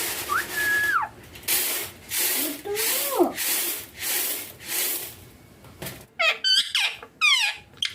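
Indian ringneck parakeet calling: a short whistled note near the start, a lower gliding call around three seconds in, then a quick run of high, sharply gliding squawks and chirps near the end. Repeated bursts of rasping, rubbing noise come between the calls in the first half.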